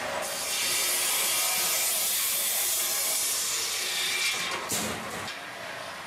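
Sawmill saw cutting wood: a loud, steady, high-pitched hiss for about four seconds, then a few knocks about five seconds in as it drops back to quieter machine running.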